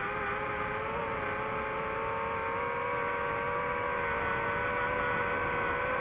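DJI FPV drone's motors and propellers whining steadily, the pitch creeping slowly up.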